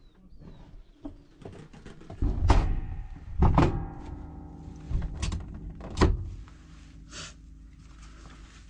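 A small aircraft's bubble canopy is pulled shut and latched in a series of about four loud knocks and thunks, the first about two and a half seconds in and the last about six seconds in.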